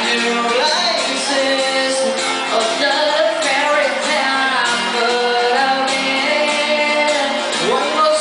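Live pop band performance with a singer carrying the melody over the band.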